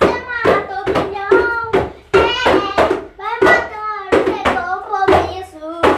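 Boys' voices singing a parody in Portuguese over a steady beat of hands slapping a plastic bucket used as a drum, about two strokes a second.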